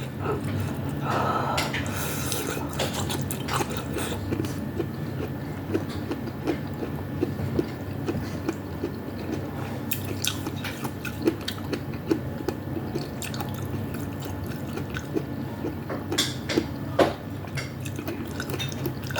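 Close-miked eating sounds from a bowl of vegetable soup with meatballs: chewing and wet mouth and liquid noises, with many small irregular clicks. A steady low hum runs underneath.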